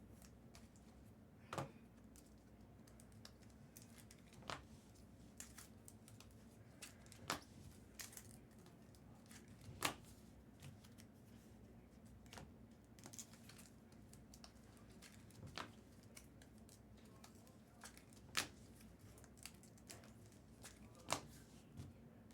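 Trading cards being handled and flipped through on a table: soft, irregular clicks and taps every second or two over a faint steady hum.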